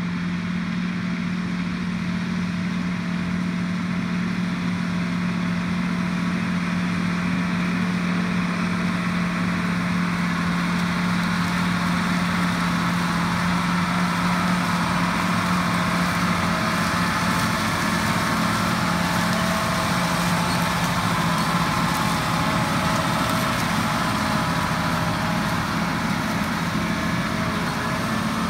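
John Deere 8245R tractor's diesel engine working steadily under load while pulling a chisel plow through corn stubble, growing gradually louder as the tractor comes closer.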